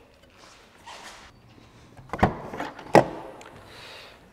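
Volkswagen Golf GTE tailgate being unlatched and swung open, with two sharp thunks under a second apart and some handling rustle around them.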